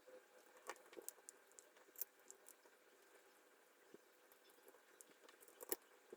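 Faint, irregular small clicks and light taps from handling the parts of a 3D-printed plastic rotary switch, a sharper click about two seconds in and another near the end.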